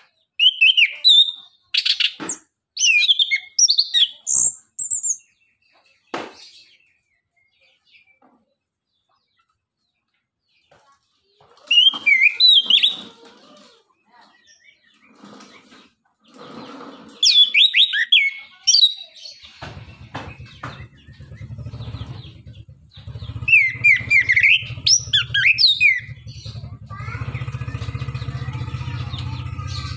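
Chestnut-capped thrush (anis kembang) singing in short, loud bursts of quick rising and falling whistled notes, with pauses between the phrases. About two-thirds of the way in, a steady low hum starts underneath the song, and near the end a buzzy tone joins it.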